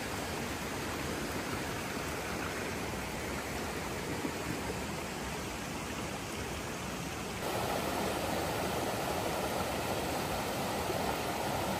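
Rainforest river water rushing over rocks in rapids, a steady, even rush. It grows louder about seven seconds in.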